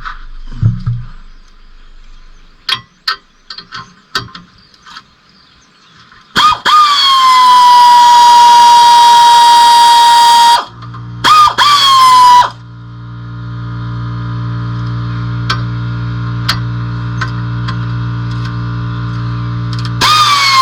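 Tool clicks and rattles, then a power tool's loud, steady high whine for about four seconds, two short blips of it, and a steady low motor hum until the whine starts again at the end.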